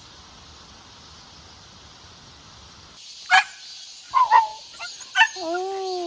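Dog barking: four sharp, separate barks starting about halfway in, then a longer drawn-out call near the end. It seems to be warning people off, guarding its spot.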